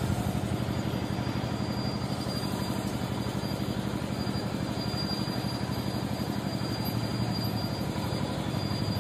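A machine running steadily, with a fast, even pulsing hum and a thin high whine above it.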